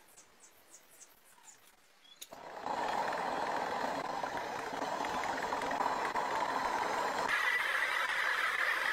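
Faint insect chirping at first, then, about two seconds in, the steady rushing roar of a forge burner starts suddenly and keeps going, turning brighter and more hissing near the end.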